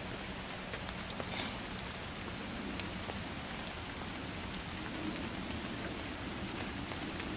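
Campfire hissing steadily with a few faint crackles, a pot of water heating over it for coffee.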